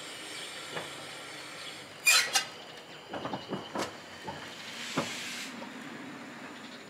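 Steam railmotor starting away: steady steam hiss, then a short sharp burst about two seconds in, followed by a few separate exhaust beats, a single knock and a spell of hissing steam.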